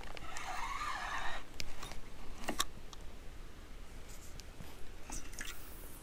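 A cat chewing on a small raw fish. There is a crunchy, rustling burst about a second long near the start, then scattered crunches and clicks.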